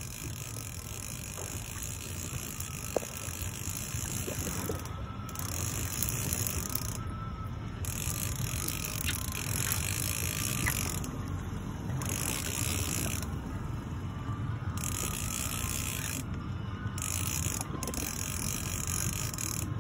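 Fishing reel being cranked under the load of a large amberjack, its gears whirring and ratcheting in repeated bursts of one to three seconds with short pauses between. A steady low rumble runs underneath.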